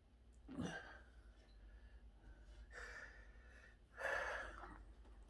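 A man's breathy gasps and exhalations, three of them, the last the longest and loudest about four seconds in. It is his reaction to the sting of too much fresh wasabi.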